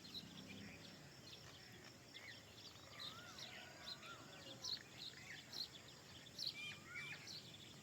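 A faint chorus of many small birds chirping at once. A few lower whistled notes bend up and down in pitch, about three seconds in and again near the end.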